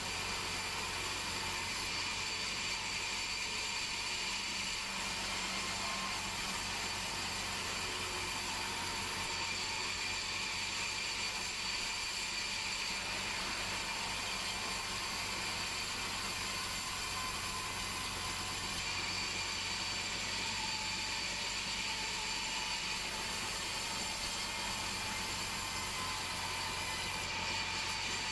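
Band sawmill running steadily, its blade cutting through a large Meranti log, with a constant whine of several high tones over a noisy hiss.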